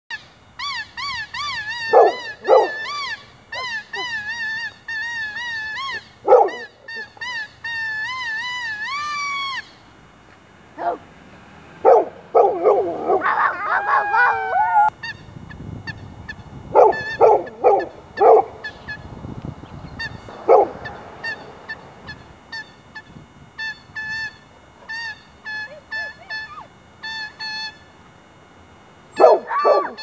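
A boy whistling at a golden retriever in warbling, wavering notes, and the dog answering with sharp barks and a drawn-out howling cry about halfway through. Whistling fills the first third; after the howl the whistles turn to short chirps, with a few more barks among them.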